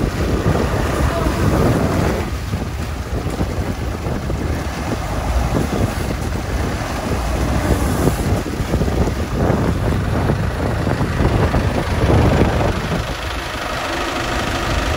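A motor cruiser's inboard diesel engine running while moored, with water churning and splashing at the stern and wind buffeting the microphone.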